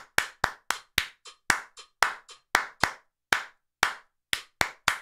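Handclaps in a steady eighth-note rhythm, about four a second, some claps weaker than others. They are clapped along to a metronome as a rhythm drill, landing on the click so it can't be heard.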